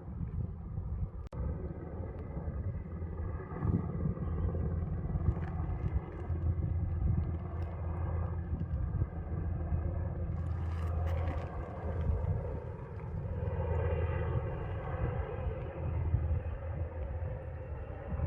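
A steady low rumble with a faint engine drone above it, swelling a little past the middle.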